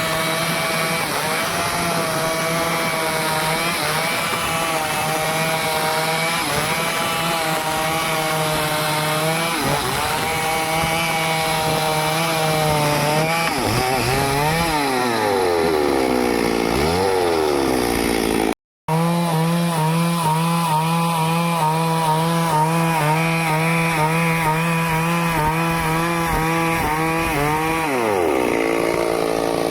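Stihl chainsaw running at high revs while cutting through wood, its pitch wavering as the chain loads in the cut. The engine slows and revs back up twice, about halfway through and near the end.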